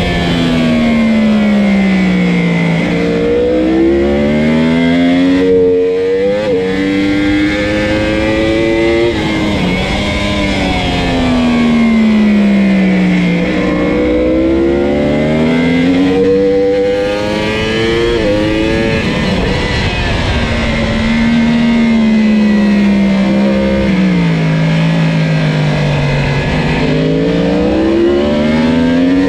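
Yamaha YZF-R1's crossplane inline-four engine at full race pace, heard from on the bike: its pitch climbs hard in stepped runs broken by quick upshifts, then slides down as it slows, several times over, with a steady rush of wind noise underneath.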